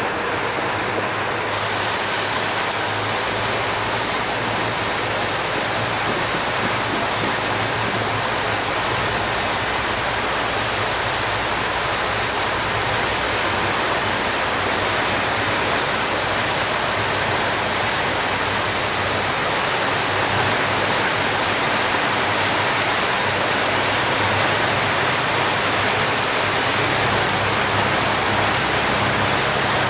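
Steady rushing and churning of a car ferry's propeller wash at the stern, over a low steady hum from the ferry's engine.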